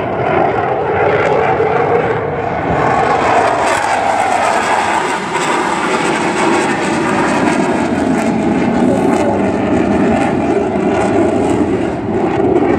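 Fighter jet's engine noise during a display pass: a loud, steady rushing jet sound whose pitch shifts slowly as the aircraft moves.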